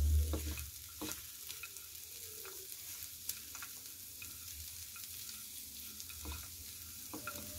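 Silicone spatula stirring diced potatoes, green peas and roasted peanuts in a frying pan: a faint steady sizzle of frying, broken by scattered clicks and scrapes of the spatula and food against the pan, with a dull knock at the start.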